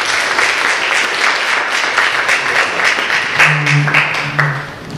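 An audience is applauding with many hands clapping, and the clapping thins out near the end. From about three and a half seconds in, low held music notes come in under it.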